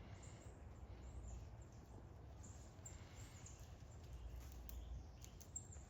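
Near silence: faint outdoor background with a low rumble and a few faint clicks near the end.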